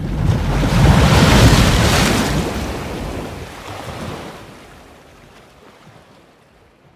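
Wind buffeting the microphone over the rush of sea water, swelling in the first two seconds and then fading away.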